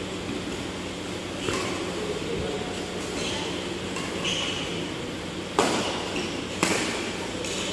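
Badminton rackets striking a shuttlecock during a rally: a few sharp hits with a short echo, two of them about a second apart near the end, over a steady low hum.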